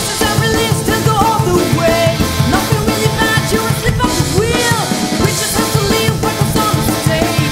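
Progressive rock band playing: a drum kit keeps a busy, steady beat with bass drum and snare under bass and gliding melodic lines.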